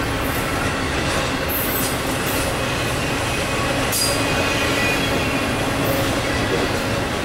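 Loaded intermodal container cars of a freight train rolling past, a steady rumble of steel wheels on rail. Faint high-pitched wheel squeal comes and goes, with a few short sharp high-pitched bursts, the sharpest about four seconds in.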